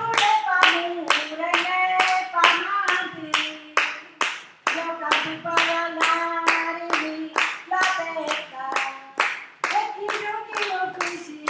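Hands clapping in a steady rhythm, about three claps a second, under a voice singing a melody.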